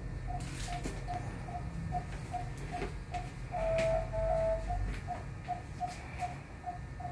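Veterinary patient monitor giving its pulse beep, short beeps at one steady pitch about two and a half times a second, following the anaesthetised animal's heartbeat; a couple of longer tones sound a little past halfway. A few faint knocks of handling come in between.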